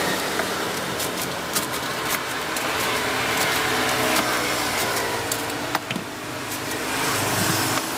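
Steady road traffic noise, with scattered light clicks as fried pempek is cut into pieces on a wooden cutting board.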